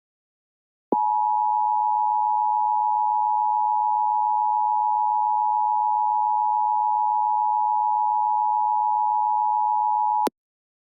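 Emergency Alert System attention signal: two steady tones sounding together (853 and 960 Hz), starting about a second in and held for about nine seconds before cutting off sharply near the end.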